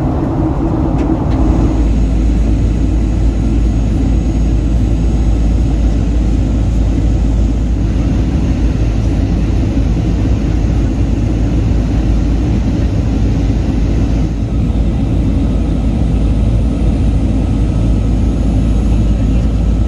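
Steady cabin noise inside a Boeing 737-800 in descent: the rush of airflow and the CFM56 engines with a constant deep drone underneath, turning slightly duller about fourteen seconds in.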